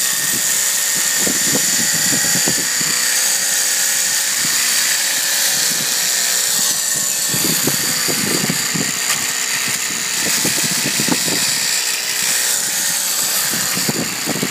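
Waveblade barnacle-removing machine running with a steady high-pitched whine while its blade scrapes off dried, hard barnacles in irregular rasping strokes.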